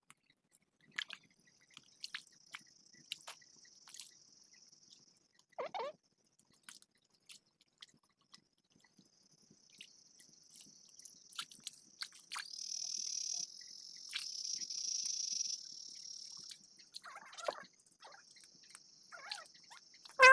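Night insects trilling in a steady high-pitched chorus that comes and goes, loudest a little past the middle, with scattered faint clicks and a couple of brief low sounds.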